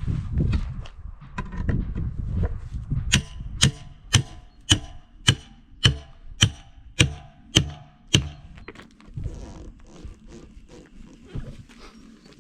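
A hammer striking the Gaz66's steel split-rim wheel, about ten evenly spaced ringing blows a little under two a second, to work a tight rim loose from the tyre. Before the blows, low scraping and knocking.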